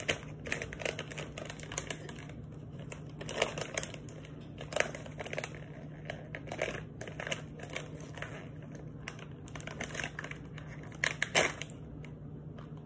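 A plastic pouch of Idahoan instant mashed potatoes crinkling and crackling as hands work at tearing it open. The crackles come irregularly throughout, with the loudest burst near the end.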